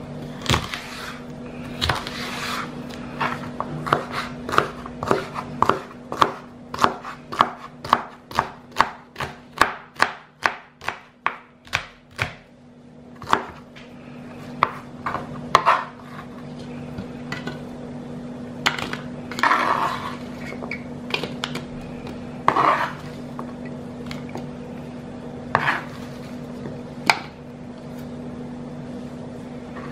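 A knife chopping a peeled prickly pear cactus pad (nopal) on a plastic cutting board: quick, even strokes about two a second for the first dozen seconds, then slower, scattered knocks.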